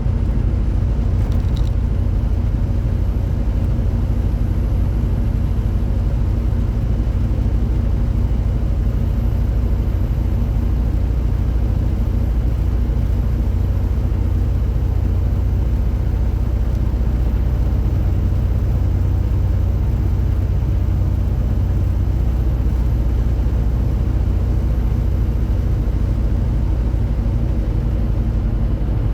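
Tractor-trailer truck driving at a steady speed: a constant low engine drone with road and tyre noise, with one brief click about a second and a half in.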